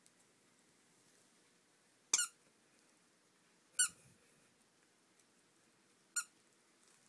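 Squeaker in a plush toy gorilla giving three short, high squeaks as a puppy bites and chews it, the first a quick double squeak.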